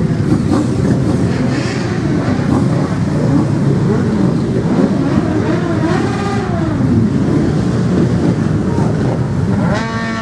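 A large group of motorcycle engines running together, idling with revs rising and falling one over another; one engine revs up sharply near the end.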